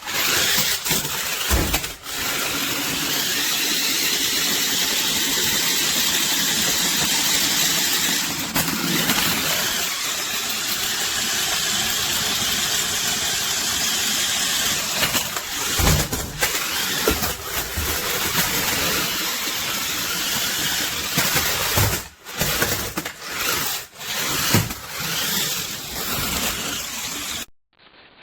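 Toy remote-control stunt car driving and spinning, its small electric motors and wheels giving a loud, steady whirring. In the second half the whirring dips and surges, with several sharp knocks as the car hits or flips, and it cuts off abruptly near the end.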